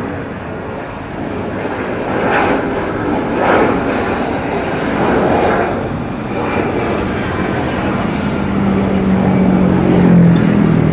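Airbus A330-343's Rolls-Royce Trent 700 turbofans at take-off thrust as the airliner climbs out: a loud rushing jet noise that swells and eases in waves. Near the end a low steady hum joins in.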